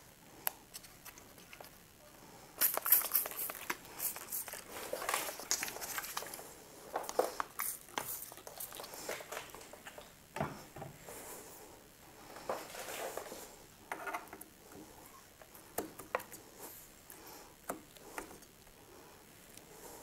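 Quiet handling sounds: a trigger spray bottle spritzing in short bursts, the sharpest about three seconds in, then scattered rubbing and clicks as a hand grip is pushed and twisted onto a handlebar wrapped in double-sided tape wetted with alcohol-water solution.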